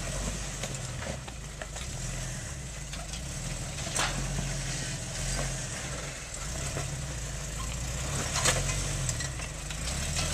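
Jeep Wrangler engine running at low revs as it crawls over boulders, with its speed rising and falling slightly. There are two sharp knocks, about four seconds in and again, louder, about eight and a half seconds in.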